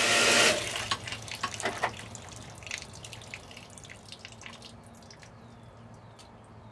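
A brief rush of water, then irregular drips and trickling that thin out and fade away, at an irrigation system's indexing valve and pipework. A faint steady low hum runs under it.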